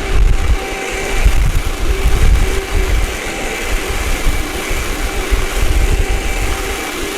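Vacuum cleaner running, a steady motor whine over irregular low rumbling.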